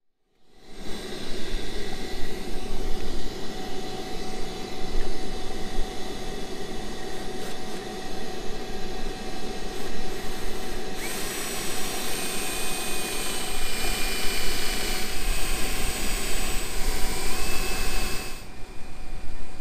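Shop vacuum running steadily while a cordless drill bores holes into the sailboat's mast. The drill's higher whine comes in about halfway through and stops shortly before the end.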